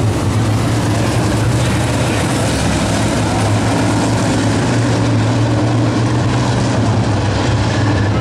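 Several dirt modified race cars' V8 engines running together as the field circles the track in single file: a loud, steady drone with no sharp revving.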